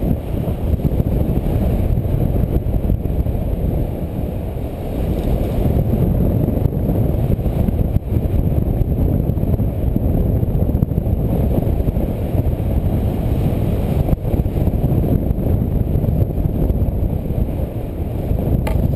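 Wind rushing over the camera microphone as a paraglider glides down in flight: a loud, steady low rumble.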